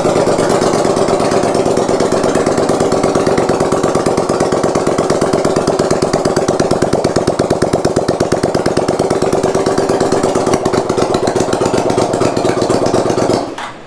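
1981 Honda GL500 V-twin engine running on its stand: loud, with a rapid, even beat of firing pulses. It is switched off abruptly near the end. To the owner it seems to run a little lean on the left cylinder.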